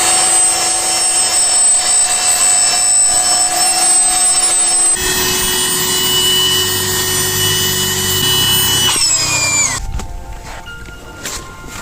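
A small electric motor runs steadily with a whine, changing pitch about halfway through, then winds down and stops. A few light knocks follow.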